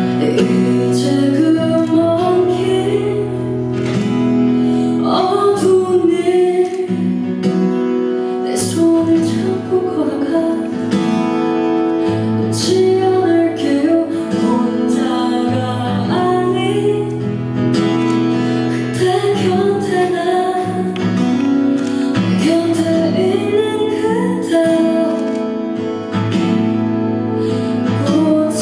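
A woman singing live, accompanied by an acoustic guitar.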